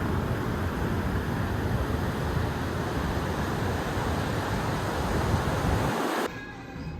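Wind buffeting the microphone over the steady rush of ocean surf on the beach. It cuts off suddenly near the end, leaving a much quieter passage with faint music.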